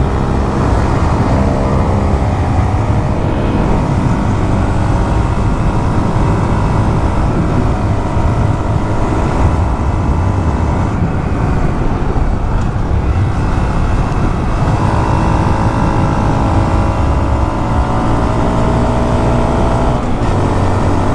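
Motorcycle engine running at a steady cruising speed, its pitch drifting gently up and down with small changes in throttle, under heavy wind rumble on the microphone.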